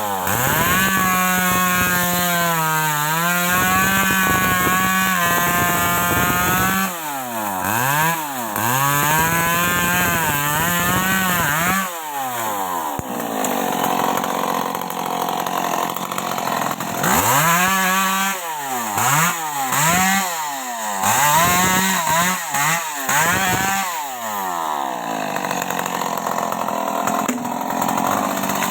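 Stihl MS 381 two-stroke chainsaw cutting wood at high revs, its pitch sagging and recovering as the chain bites. In two stretches the engine is revved up and let back down again and again in quick succession.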